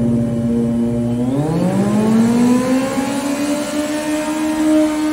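A sport motorcycle's engine held at high revs during a stationary burnout, the rear tyre spinning in place. It holds one steady note, then climbs higher about a second and a half in and stays up there, creeping slowly upward.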